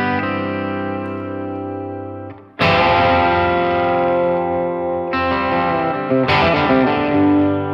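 Electric guitar played through a Blackstar HT-5R MkII 5-watt valve combo on its Clean Voice 2 setting. A chord rings out and fades, then a new chord is strummed about two and a half seconds in, with more chords struck near five and six seconds in and left ringing.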